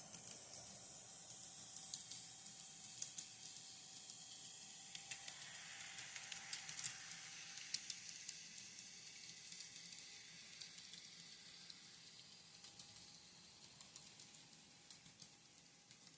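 Kato SD40-2 N scale locomotive and its cars running on track: a faint steady whir with many small wheel clicks. It gets louder as the train passes close, about five to nine seconds in, then fades away.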